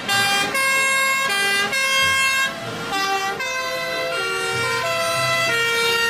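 Several fire engine two-tone sirens sounding together, each switching between two fixed pitches, the alternating tones overlapping out of step.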